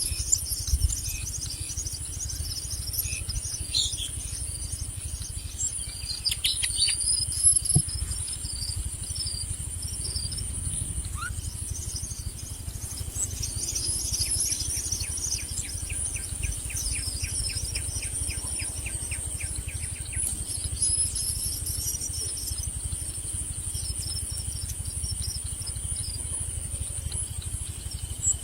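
Birds chirping repeatedly over a steady, high-pitched insect drone, with a rapid run of ticking calls in the middle and a low rumble underneath.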